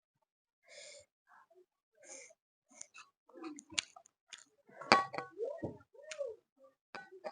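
A person eating chicken curry close to the microphone: chewing and mouth clicks with short breathy sniffs. Near the end come a louder smack and two short hummed sounds.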